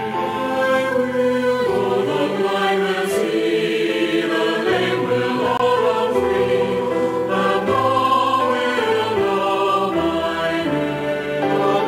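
Background choral music: a choir singing slow, held chords.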